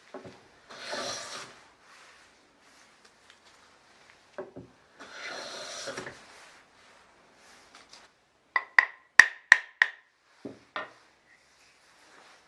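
Hand work on a Japanese plane (kanna): two rough rubbing strokes of wood, then a quick run of about six sharp, ringing taps and a couple of duller knocks, the kind made when a small hammer taps the plane to set the blade.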